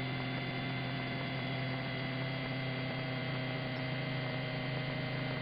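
Steady low electrical hum with a faint hiss on the helicopter's radio and intercom audio line, with nobody transmitting.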